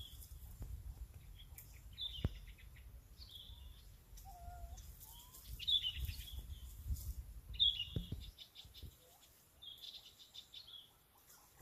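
A bird singing in repeated short, high phrases, each a quick note running into a fast rattling trill, roughly every two seconds, over a low rumble that stops about eight seconds in.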